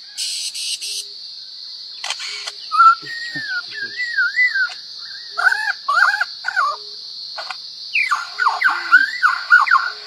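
A lyrebird singing a varied mimicry sequence. It begins with warbling whistled glides, then gives clusters of repeated down-slurred chirps with a few clicks, and near the end a fast run of falling whistled notes.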